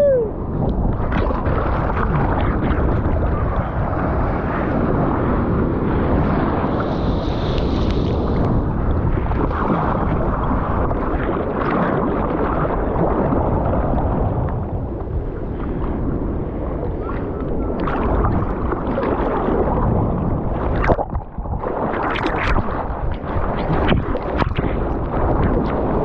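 Ocean surf water sloshing and splashing right at the camera at the water's surface, a steady churning wash, with a run of sharper splashes in the last third.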